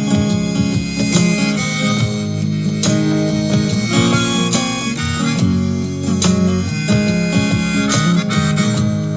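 Instrumental break in a song: harmonica playing held notes over strummed acoustic guitar.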